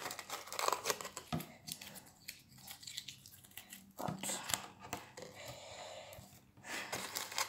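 Aluminium foil crinkling and tearing as it is shaped by hand, with scattered light clicks against the table.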